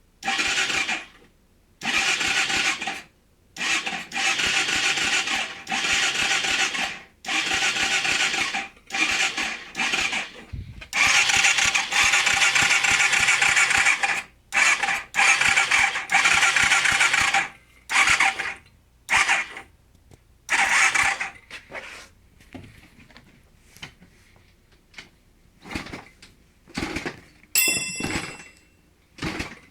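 A dirt bike being cranked over and over without starting: about fifteen bursts of cranking, each one to two seconds long with short pauses between, the engine never catching into a steady run. The attempts get shorter and choppier near the end.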